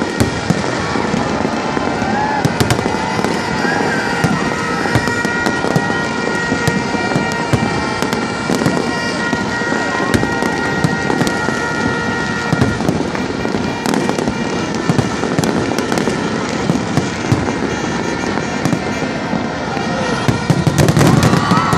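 Fireworks display: a dense, irregular run of bangs and crackling bursts, with a steady high tone running through the first half and a louder cluster of bursts near the end. Crowd voices are underneath.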